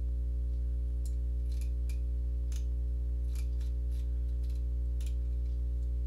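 Steady low electrical hum from the recording setup, with faint, irregular clicks of a computer mouse as the document is scrolled.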